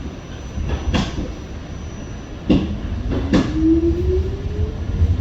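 New York City subway train running, heard from inside the car: a steady low rumble with a few sharp knocks of the wheels over rail joints. A thin whine rises steadily in pitch from about halfway through.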